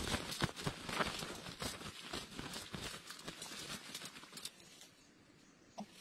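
Dry leaf litter and twigs crackling and rustling as a greater coucal scuffles at the lure on the ground: a dense run of crackles that thins out and fades after about four and a half seconds, with one short sound near the end.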